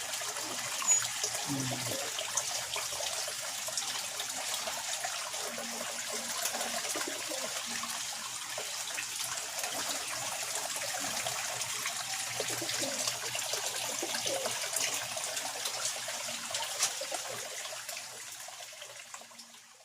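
Aquarium water bubbling and trickling from air-pump aeration, a steady fizz of small bubble pops that fades out near the end.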